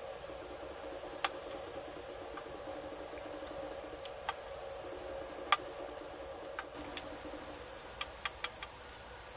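A metal spoon stirring in a small metal camp pot, giving sharp, irregular clinks against the pot over a faint steady hum, with a quick run of clicks near the end.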